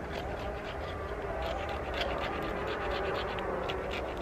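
The spine of a knife scraped repeatedly down a piece of fatwood, a quick run of rasping strokes that takes off fine resin dust and thin shavings for tinder.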